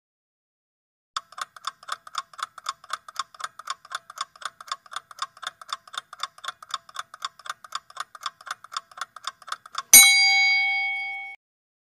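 Countdown-timer sound effect: fast, even clock ticking at about four ticks a second. The ticking ends about ten seconds in with one loud bell ding that rings for about a second and a half, marking that time is up.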